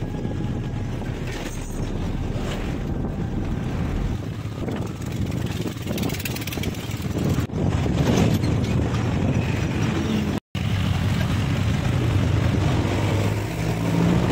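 Motorcycle riding at road speed: wind rushing over the rider's camera microphone with the engine running underneath. The sound steps up about seven seconds in and cuts out for a moment about ten seconds in.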